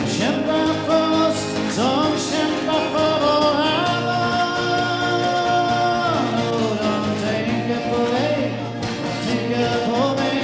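A song with a singer over instrumental backing; the voice holds one long note about four to six seconds in.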